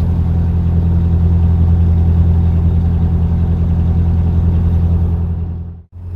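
Narrowboat's diesel engine running at a steady cruising pace, a constant low hum. The sound fades and drops out briefly near the end, then returns.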